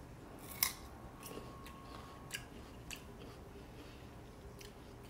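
A person biting into a raw jicama slice with one crisp bite about half a second in, then chewing it with scattered small crunches.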